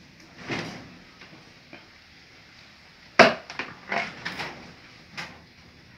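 Dishes being washed by hand: plastic plates knocking and clattering against a plastic basin and pots, with water sloshing in the basin. There are a handful of separate knocks, the loudest about three seconds in.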